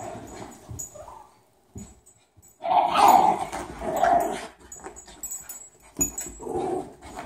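Excited dogs whining and yipping as they chase a laser-pointer dot, in a loud burst about three to four and a half seconds in and again near the end.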